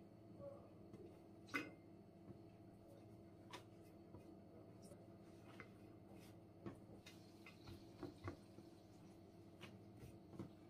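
Faint rustling and light taps of thin hand-rolled baklava dough sheets being laid and pressed into a round metal tray, the sharpest tap about one and a half seconds in, over a low steady hum.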